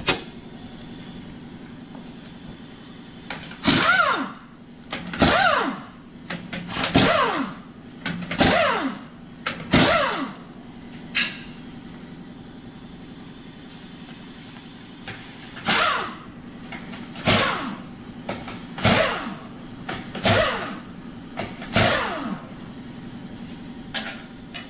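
Air impact wrench taking the lug nuts off the Lincoln Town Car's stock wheels. It comes in two runs of five short bursts, each about a second long with a whine that falls in pitch, and a pause of several seconds between the runs. A steady low hum lies underneath.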